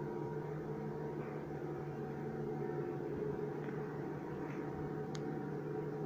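Steady machinery hum with several level tones held together, and a brief high click about five seconds in.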